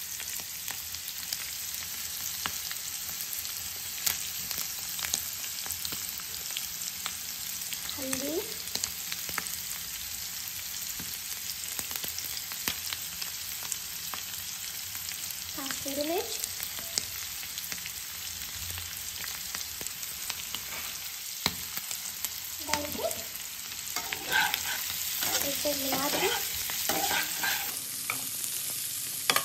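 Boiled potato cubes sizzling steadily in hot oil in a non-stick frying pan over a high flame, with scattered small crackles. In the last few seconds a spatula stirs and scrapes the potatoes around the pan, louder than the sizzle.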